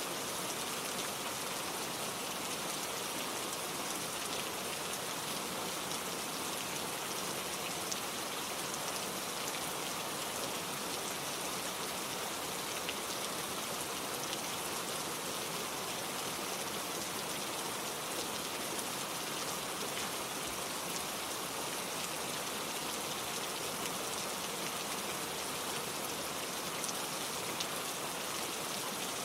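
Steady gentle rain falling, an even hiss with scattered drops ticking and no thunder.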